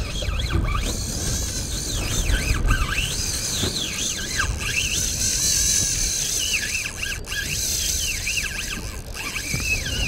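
Spinning reel's drag screaming as a hooked kingfish (king mackerel) runs and strips line off the spool, a high squeal that wavers up and down in pitch.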